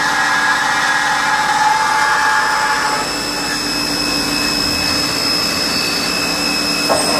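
Rüsch CNC beam drilling and sawing line running: a steady mechanical whine with several high, steady tones over a noisy bed. A layer of mid-pitched tones stops about three seconds in, and there is a brief clack near the end.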